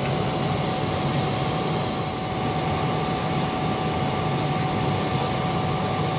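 Steady cabin noise of an airliner in cruise flight: an even rush of engine and air noise with a low drone and a thin steady whine running through it.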